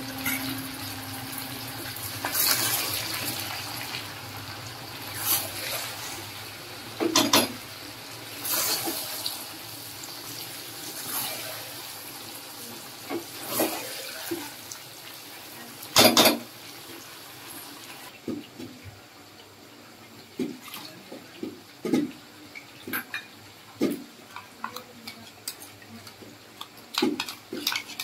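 Chicken and masala paste sizzling in a metal kadhai as a spatula stirs it, with loud scrapes and knocks of the spatula against the pan. After about 18 seconds the sizzling hiss drops away and only short metal clinks remain.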